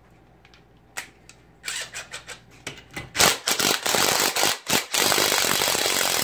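Harbor Freight Earthquake 3/8-inch 20 V cordless impact wrench tightening a nut on a bolt clamped in a vise. It comes on in short trigger-feathered bursts about two seconds in, then hammers steadily for about three seconds and stops right at the end.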